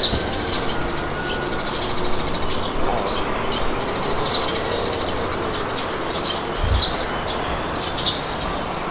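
Steady wind noise with small birds chirping over it in short, repeated calls. There is a brief low thump a little before the end.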